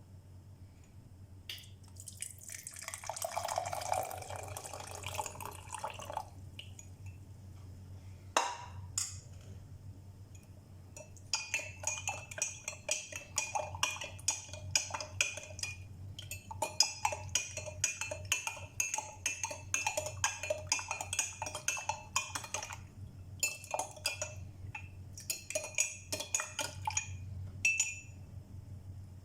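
Liquid being poured for a few seconds, then a spoon stirring in a glass with fast, ringing clinks that stop and start several times.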